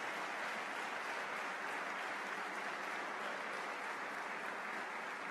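An audience applauding steadily, a dense even clapping that holds at one level throughout.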